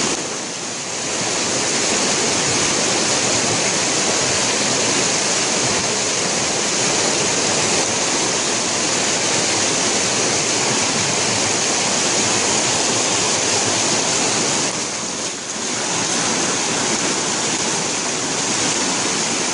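Fast-flowing floodwater rushing through a street in heavy rain: a loud, steady rush that dips briefly twice, about half a second in and about fifteen seconds in.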